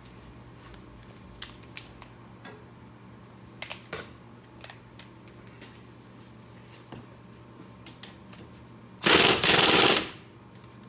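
Light metallic clicks and taps of bolts and brake parts being handled, then an impact wrench hammering in two short bursts of about a second in all near the end, running in a 15 mm caliper bracket bolt.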